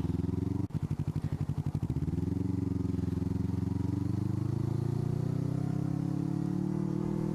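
Suzuki Inazuma 250's parallel-twin engine running through its aftermarket Ixil exhaust while riding. A sharp brief drop in sound under a second in, like a gear change, is followed by a pulsing, lower-revving note, and then a steady pull with the pitch rising as the bike accelerates.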